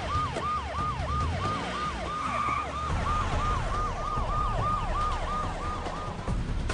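Police car siren on a fast yelp, rising and falling about three times a second over the low rumble of car engines. It fades out near the end.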